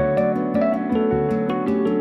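Background music: plucked acoustic guitar over a steady bass pattern.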